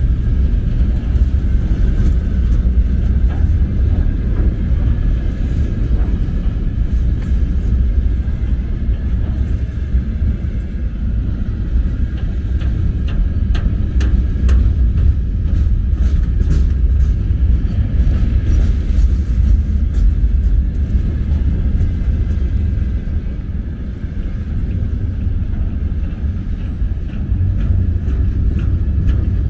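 Long freight train of open-top wagons rolling past close by: a steady heavy rumble with irregular clicks and clacks from the wheels and couplings, busiest in the middle.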